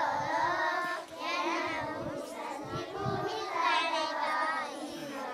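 Children's voices singing together in phrases, with a short break about a second in.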